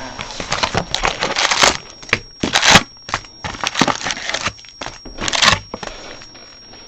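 Crinkling and tearing of the plastic wrap on a sealed box of trading cards as it is unwrapped and opened, in irregular rustles with a few louder tears.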